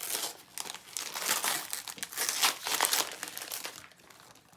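Gift wrapping paper crinkling and rustling as a present is unwrapped, in irregular crackles that die down near the end.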